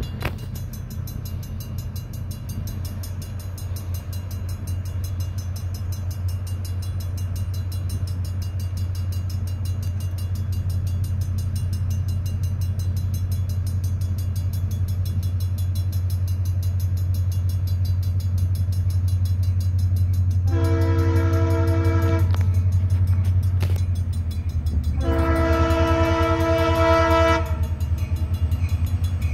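Approaching freight train's diesel locomotive, its engine a steady low drone that grows slowly louder as it nears. About twenty seconds in, the locomotive's air horn sounds two long blasts a few seconds apart, the start of a grade-crossing horn signal.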